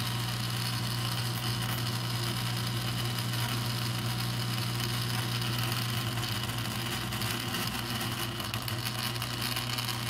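Whirlpool dishwasher circulation pump motor (W10816492) powered on the bench, giving a steady hum while its rotor jumps about instead of spinning smoothly: a failed pump, which the owner puts down to a cheap bearing.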